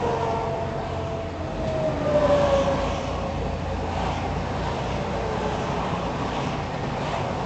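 Semi-truck running down a freeway, heard from inside the cab: a steady engine drone and road rumble, with the engine note slowly dropping and a brief louder swell about two seconds in.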